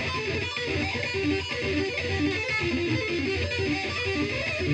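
Electric guitar played through an amplifier: a fast, continuous run of quick single notes, arpeggio practice.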